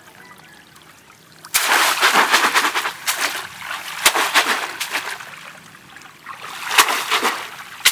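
Water splashing in two loud bursts of rapid slaps and sloshes. The first starts suddenly about a second and a half in and lasts about two seconds; the second comes near the end. Single sharp slaps on the water fall in between and at the close.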